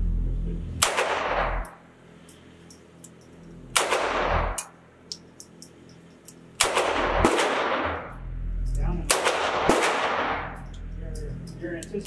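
Beretta U22 Neos .22 LR pistol firing single shots, each sharp crack followed by a long echoing tail off the indoor range's concrete walls. About five shots spaced a few seconds apart, two of them about half a second apart near the end, with another shot just as it ends.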